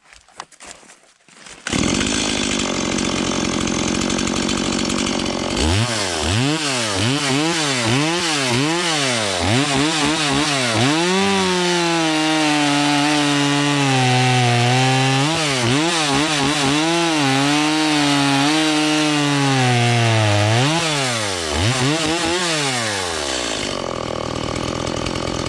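Stihl MS170 two-stroke chainsaw running from about two seconds in. It is revved up and down several times, then held at full throttle while its freshly sharpened 3/8" Picco chain cuts through a log, and drops back to idle near the end.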